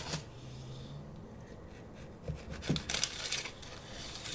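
Knife cutting through a round of cornbread on parchment paper: a few short scratchy strokes, the loudest about three seconds in.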